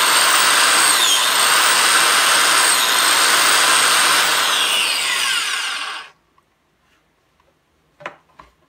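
Ryobi JM82GK 6-amp corded biscuit joiner running at full speed while it is plunged twice into the end grain of a pine 2x4. Its pitch dips briefly with each push as the blade bites into the hard end grain. The motor cuts off about six seconds in, followed by a couple of light knocks.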